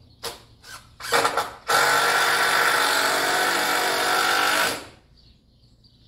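Power drill at work on the wooden frame: three short trigger pulls, then one steady run of about three seconds that stops sharply.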